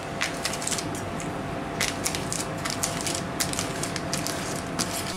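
A fork cutting smoked salmon against its thin plastic packaging tray: irregular clicks and crackles of the plastic as the fork presses and scrapes through the fish.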